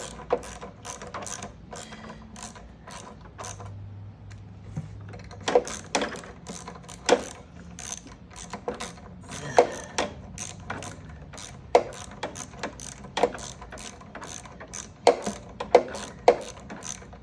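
Ratchet wrench clicking in short strokes, with a louder knock every second or so, as screws are tightened on a lawnmower carburetor.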